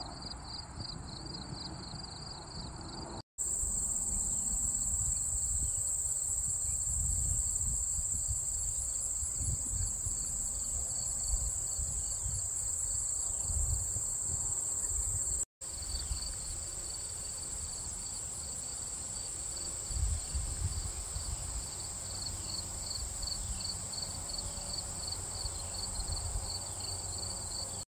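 Meadow insects calling: a steady high-pitched buzz layered with rhythmic cricket chirps, a few a second, over a low rumble of wind on the microphone. The sound drops out for an instant twice, about three seconds in and about halfway through.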